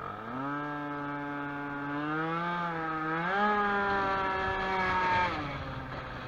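Two-stroke engine of a Baotian Falcon 50R scooter, tuned with a Stage6 Racing high-end kit, accelerating hard from a standstill. The revs jump up at once, hold, climb again about three seconds in, then fall away about five seconds in.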